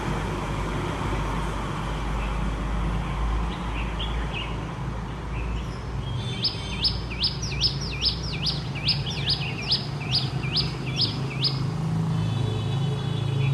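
A songbird giving a quick run of about a dozen identical sharp, high chirps, about two and a half a second, for some five seconds from around the middle, with a few fainter chirps before it. Beneath it runs a steady low rumble of city traffic.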